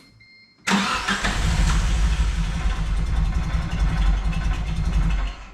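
Four-cylinder engine of a Geo Tracker cranked over for about four and a half seconds with an even pulsing beat, starting suddenly and cutting off abruptly; its timing is a tooth off, so it will not run properly.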